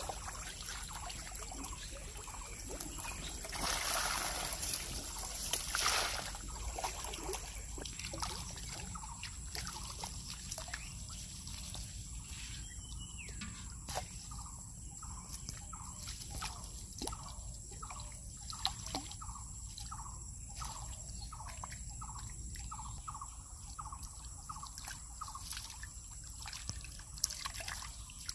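Water splashing and trickling as a mesh fish trap is hauled through and lifted out of shallow muddy water. The loudest splashes come a few seconds in, followed by a long run of short watery sounds about twice a second.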